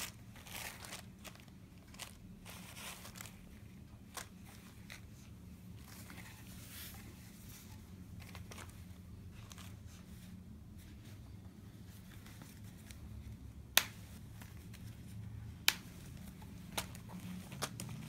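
Clear plastic packaging bag crinkling and rustling as hands handle folded cotton baby towels, with two sharp clicks about two seconds apart in the last third.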